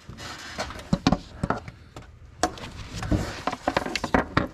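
Irregular knocks and clacks as a valve cover is handled and set down onto the cylinder head of a Ford 7.3 Powerstroke diesel, bumping against the engine as it is worked into place.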